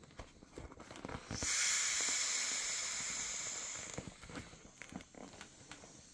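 Air hissing out of the open valve of an inflatable vinyl toy, starting about a second and a half in, fading, and stopping when the valve is closed. Soft crinkling of the vinyl and small clicks from handling the valve around it.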